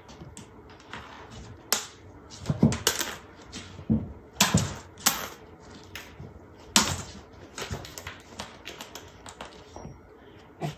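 Irregular sharp taps and clatters from cats pouncing on and batting at a wand toy. The loudest knocks come about 3, 4, 5 and 7 seconds in.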